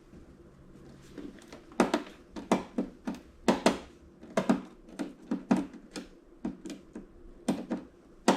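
A run of irregular knocks and clicks, one to three a second, from hard objects being handled.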